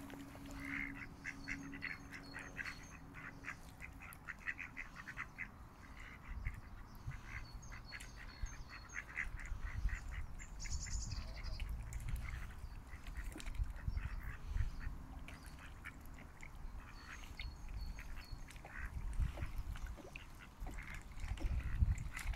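Mallard ducks quacking, many short calls in quick runs.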